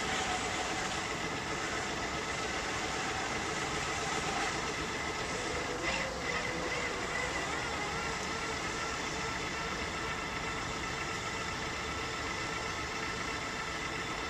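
Small vessel's on-board motor running steadily under way, a constant whine over a rushing hiss, with a brief click about six seconds in.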